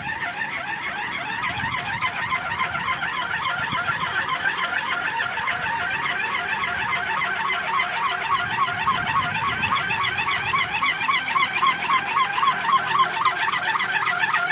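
Wooden kolecer (wind propeller) spinning in strong wind, giving a steady warbling hum that wobbles quickly and evenly in pitch. It grows a little louder over the first few seconds.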